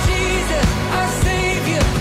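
A pop-style song with a singing voice over a bass line and a steady beat, a little under two beats a second.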